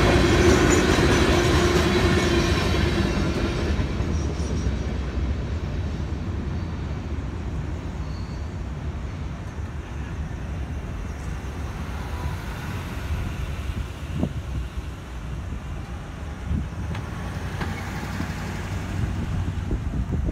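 Boxcars of a freight train rolling over the crossing, with a steady tone from the wheels. The sound fades over the first few seconds as the end of the train passes, leaving a low rumble. Near the end a pickup truck drives over the crossing.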